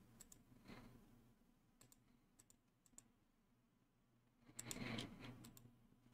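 Faint computer mouse clicks, a few close pairs spread over several seconds, entering a PIN on screen. A brief soft rush of noise about four and a half seconds in is the loudest sound.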